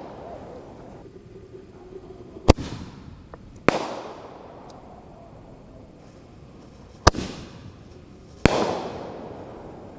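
Aerial firework shells bursting: four sharp booms in two pairs, a little over a second apart in each pair, the first pair about two and a half seconds in and the second about seven seconds in. Each boom trails off in a rolling echo.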